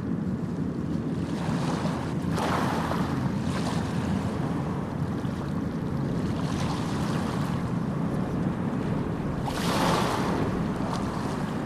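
Sea waves breaking and washing ashore: a steady low rumble of surf, with the hiss of a breaker swelling about two seconds in, a softer one midway, and the strongest near the end.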